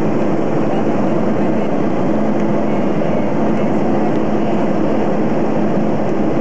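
Steady, unchanging cabin noise of an airliner in flight: the engines and rushing air heard from inside the cabin at a window seat.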